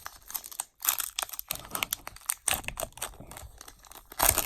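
Wrapper of a Bowman baseball-card pack being torn open and crinkled by hand: a run of short crackles, with a louder rip near the end.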